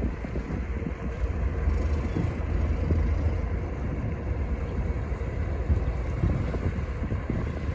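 Wind buffeting the microphone in uneven gusts over a low, steady rumble of squid-fishing boat engines running.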